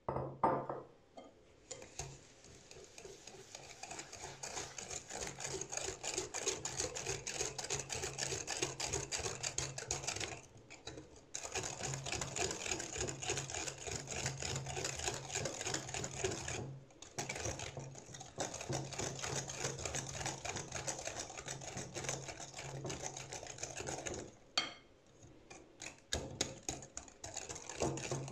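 A single knock at the start, then a wire whisk beating eggs and sugar in a glass bowl: a fast, even ticking and scraping of the wires against the glass, broken by three short pauses.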